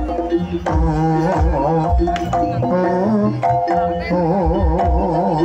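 Javanese jaranan ensemble music played live: a wavering, ornamented melody line over hand-drum strokes and gamelan percussion, with a sustained low bass.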